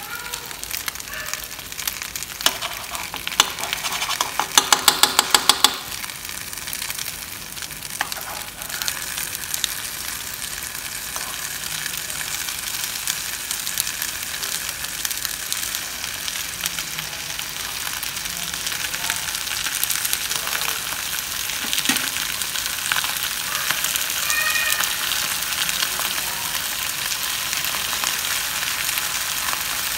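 Chicken, sauce and melting butter sizzling steadily in a non-stick frying pan. A quick run of sharp clicks sounds for a few seconds near the start.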